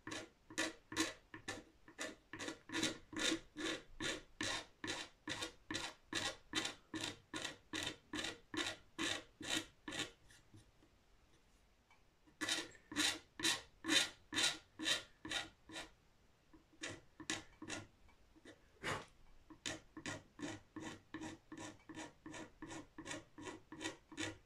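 A single-edge razor blade used as a scraper, drawn in quick back-and-forth strokes, about two to three a second, over the finish on a guitar headstock to level it. The strokes stop for about two seconds near the middle, then carry on.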